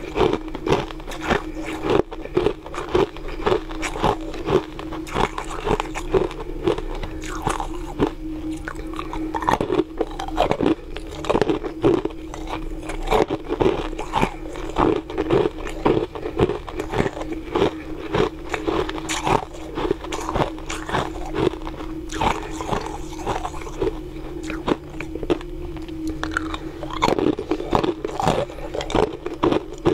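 Close-up crunching and chewing of hard frozen ice in the mouth: a dense, irregular run of cracks and crunches that goes on throughout, over a steady low hum.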